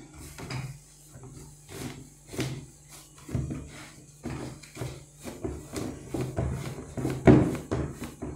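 Hands working kesra semolina dough in a bowl: irregular soft thuds and rubbing as it is pressed and turned, with a louder thud near the end.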